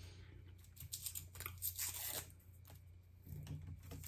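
A candy wrapper being torn and peeled open by hand: a few short, faint rips and crinkles, bunched a second or two in.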